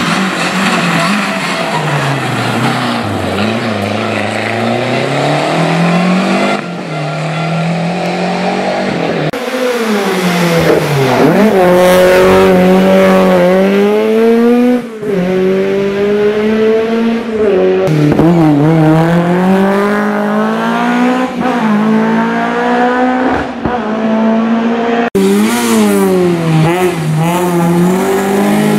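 Historic rally cars driven flat out, one after another: engines revving hard and rising in pitch through the gears, dropping off when lifting or braking, then climbing again. The sound cuts abruptly from one car to the next about five times.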